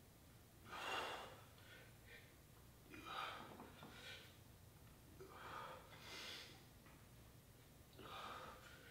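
A man breathing hard through a set of dumbbell reps: about six short, sharp breaths a second or two apart, each forced out with the effort of a lift.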